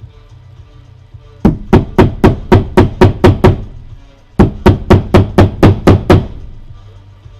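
Hammer blows driving an oil seal into its seat in a Ural motorcycle gearbox housing: two runs of quick, sharp strikes, about four a second, with a short pause between them.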